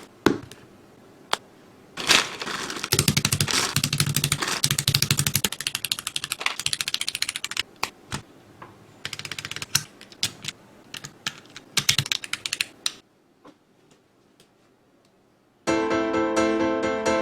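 Fast typing on an 84-key gasket-mount mechanical keyboard (SIKAKEYB SK5): a rapid run of key clacks that thins to scattered keystrokes and stops. Piano-like music starts near the end.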